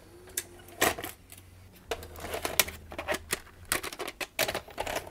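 Panasonic NV-D48 VHS VCR taking in a cassette: a run of plastic and metal clicks and clunks from the cassette housing and tape-loading mechanism, with a motor hum through the middle. The owner suspects the mechanism is still out of alignment.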